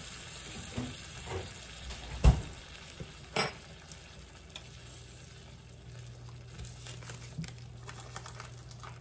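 Chicken in a creamy soup-and-milk sauce sizzling in a skillet while a silicone spatula stirs it, with a few knocks, the loudest about two seconds in.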